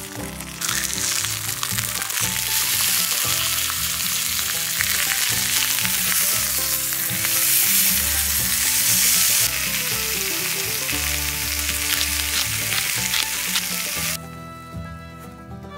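Two pork chops sizzling and spitting in an oiled black oval frying pan over a camp stove, with background music underneath. The sizzling starts about half a second in, swells louder near the middle and cuts off about a second before the end.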